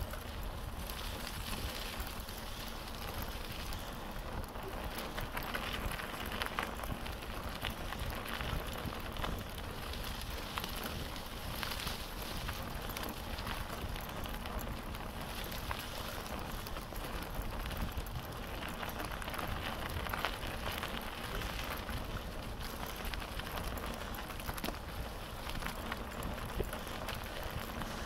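Bicycle tyres rolling over a dirt track covered in dry fallen leaves: a steady crackle and rustle of leaves under the wheels, with a constant low rumble underneath.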